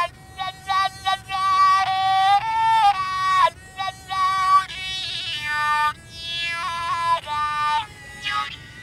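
K'ny, a single-string bamboo fiddle whose sound is drawn through a thread held in the player's mouth, playing a slow melody of long, voice-like held notes. The pitch slides between notes, with quick flicks and ornaments in between.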